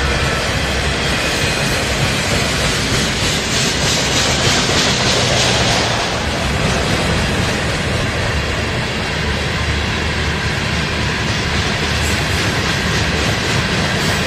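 Freight train cars rolling past on the rails: steady wheel-on-rail noise. A brighter hiss eases off about six seconds in.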